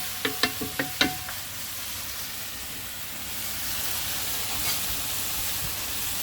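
Curried rooster sizzling in a pot as it is fried down to cook off the liquid the meat releases. In the first second a few sharp metallic knocks, with a short ring, as the spoon strikes the pot while stirring.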